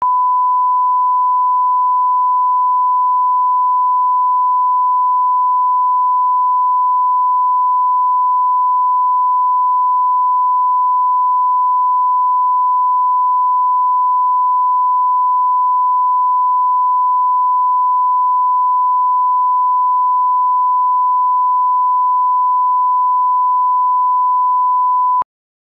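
Broadcast line-up test tone: a single steady 1 kHz pure tone played with colour bars. It holds at an even level, then cuts off sharply near the end with a faint click.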